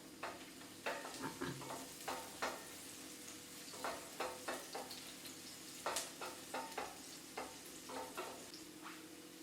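Sliced onions frying in oil in a pan, with a utensil stirring and scraping against the pan in many short, irregular strokes.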